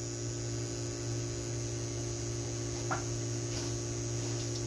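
Schneider Conext SW+ inverter humming steadily while it supplies about 0.9 kW of load, with a faint click about three seconds in.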